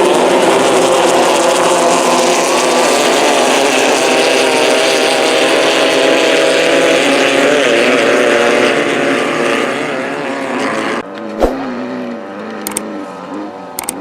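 Many Class 11 Volkswagen Beetle race cars' engines running and revving together at a landrush start, a dense mass of overlapping engine noise. About eleven seconds in the sound changes abruptly to fewer engines rising and falling in revs, with a single sharp knock.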